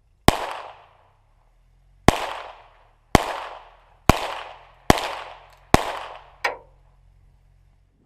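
Six gunshots fired one at a time, roughly a second apart, each with a fading echo, followed by a fainter short crack.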